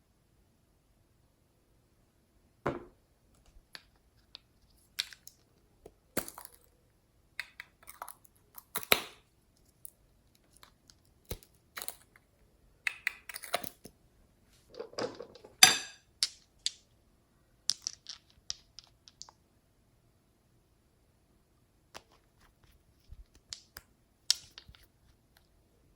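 Clear slime being handled and squeezed by hand: irregular clicks and crackling pops in short clusters, with quiet gaps between them.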